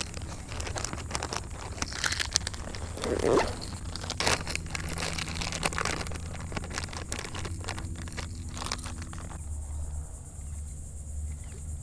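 Hands rummaging in a fabric backpack and handling a plastic soft-bait packet: rustling, crinkling and scattered clicks. Quieter for the last couple of seconds.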